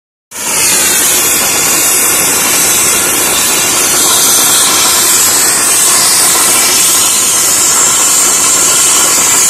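Mi-8 helicopter's turbine running with a loud, steady high-pitched hiss while the main rotor is still stopped, before take-off.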